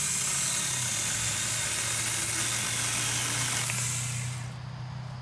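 Sakar 4-inch battery-powered mini chainsaw running and cutting through a branch: a loud, steady hissing buzz that fades away about four and a half seconds in.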